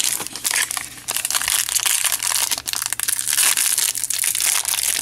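Foil trading-card pack wrapper crinkling as it is handled and pulled apart at its crimped seam, a dense run of fine crackles.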